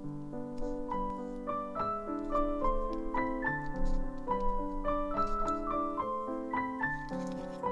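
Background solo piano music: a melody of quick single notes over held lower chords.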